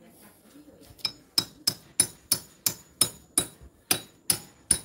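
Hammer blows, about three ringing strikes a second, starting about a second in and keeping an even pace.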